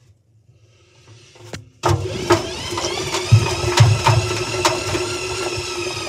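A Hoover 7 kg washing machine drum turned by hand starts about two seconds in, giving a steady whirring tone that slowly falls in pitch. Several dull thumps come from the iPad knocking against the drum as it tumbles.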